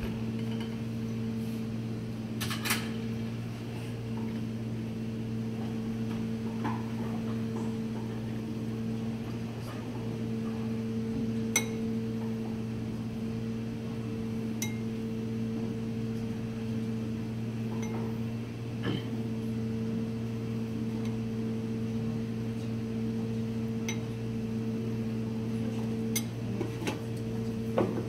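Steady mechanical hum of kitchen equipment, even in pitch, with a few faint taps and clicks from hands working pasta dough and filling on a plastic cutting board.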